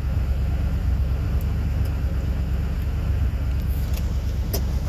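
Ford F-150's 5.4-litre V8 engine running unevenly just after a first start, rough on stale old gasoline.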